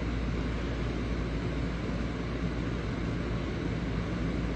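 Steady low rumbling background noise with a fainter hiss above it, unchanging throughout.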